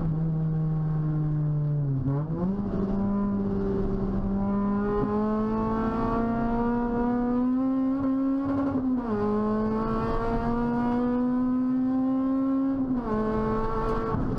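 Toyota Celica T-Sport's 1.8-litre VVTL-i four-cylinder (2ZZ-GE) heard from inside the stripped cabin, driven hard on track. The engine note jumps up about two seconds in, then climbs steadily and drops sharply at a gear change about nine seconds in. It climbs again and drops at a second gear change near the end.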